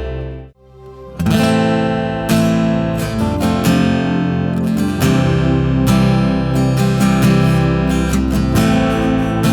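A worship band playing: the previous song's music drops away about half a second in, then strummed acoustic guitar with the band comes back in about a second in and carries on as an instrumental lead-in with no singing.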